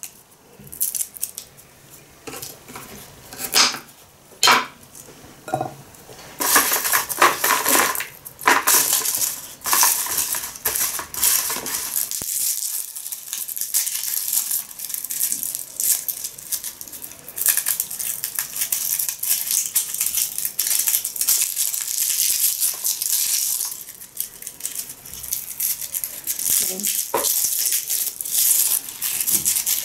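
Dry, papery garlic skins crackling and rustling as garlic cloves are peeled by hand, with light clicks and taps. The sound is sparse at first and becomes a busy crackling from about six seconds in.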